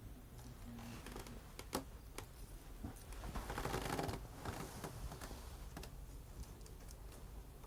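Hand gold-leaf gilding: a few light taps and a brief papery rustle about halfway through as sheets of gold leaf are handled and laid down.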